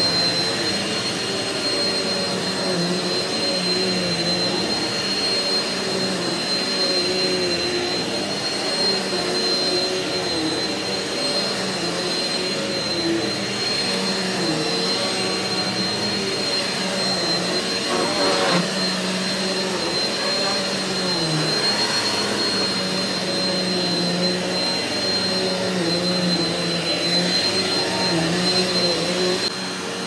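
Eureka NEU180B PowerSpeed bagless upright vacuum cleaner running steadily while pushed back and forth over carpet. It makes a constant high whistle over the motor noise, and its lower hum wavers with the strokes.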